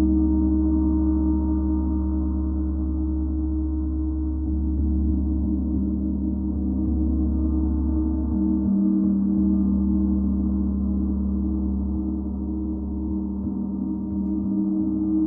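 32-inch planetary gong played with mallets, giving a steady, droning wash of many low, overlapping sustained tones with no sharp strikes standing out.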